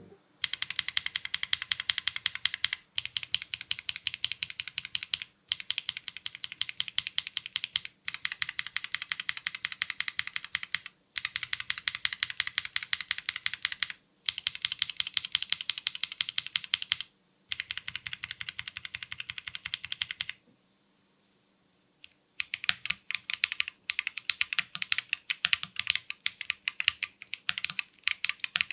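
Mechanical keyboard with KiiBoom Taro Cream Milk tactile switches being typed on quickly: dense runs of key clacks a few seconds long, split by brief pauses, with a longer pause about two-thirds of the way through.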